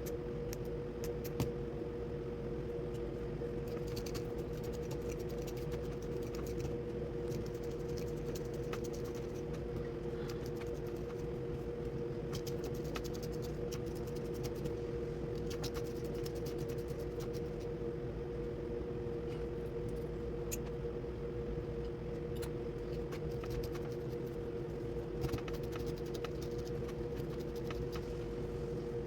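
A steady machine hum with two fixed tones, under scattered faint clicks and snips as scissors cut slits into a thick loc (wick) and fingers pull its hair open.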